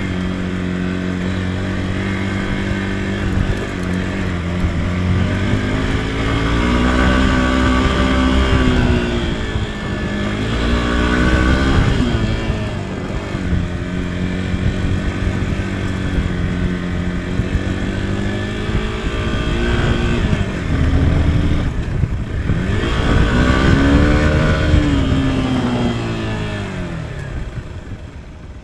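Motorcycle engine running under way, its pitch steady for stretches and rising and falling several times with the throttle, and easing off near the end.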